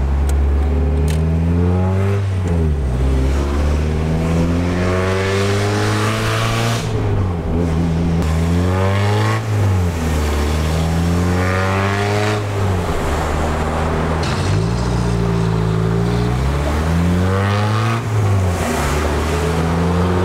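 Mazda Miata NA6's 1.6-litre four-cylinder engine and exhaust heard from inside the cabin while driving. The revs climb and then drop sharply again and again as the car accelerates and shifts through the gears.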